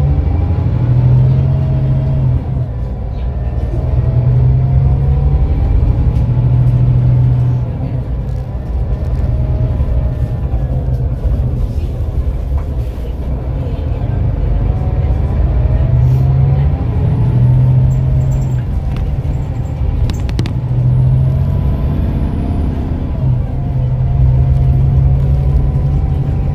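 Scania K410EB6 coach's diesel engine and drivetrain under way, heard from inside the passenger cabin. A low engine drone swells and eases off several times as the coach pulls away and slows, with a faint whine rising and falling in pitch with speed.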